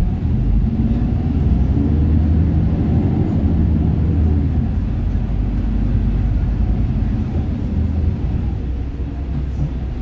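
City bus engine and road rumble heard from inside the cabin while the bus drives, the engine note rising and falling a couple of seconds in.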